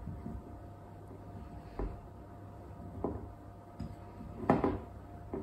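Hands squeezing and pressing shortcrust pastry dough together in a glass mixing bowl: a few soft, irregular bumps and rubs, the loudest about four and a half seconds in.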